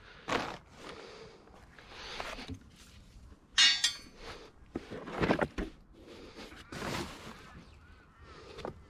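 Scrap metal being handled and set down: scattered knocks and clinks, with one sharp, ringing metallic clang about three and a half seconds in.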